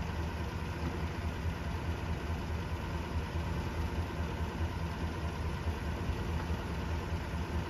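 Pickup truck's V8 engine idling steadily, a low even hum.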